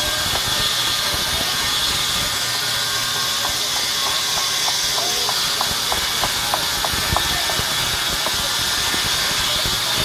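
Large band-saw mill running, a steady loud hiss with a high-pitched whine. Faint quick ticking comes in through the middle.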